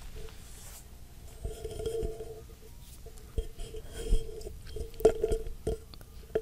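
Handling and fitting of self-adhesive 3D foam wall panels: irregular short scrapes, rubs and knocks. The sharpest knock comes about five seconds in.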